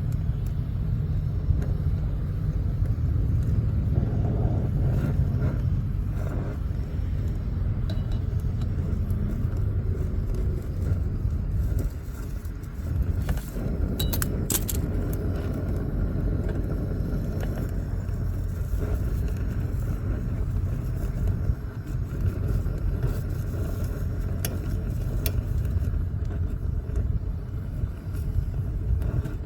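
Brazing torch flame running steadily while a filter drier is brazed into a refrigerant line, with a few light clicks about halfway through.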